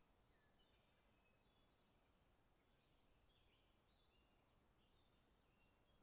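Near silence: a very faint nature ambience with a steady high-pitched hiss and scattered short, faint bird chirps.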